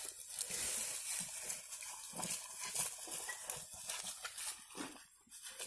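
Dry sorghum stalks rustling and crackling in a run of irregular crisp snaps, with a brief lull about five seconds in.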